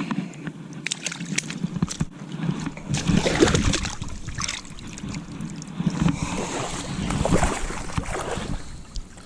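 Water sloshing and splashing with scattered knocks and rustles, as a landed sockeye salmon is handled and let go in the river.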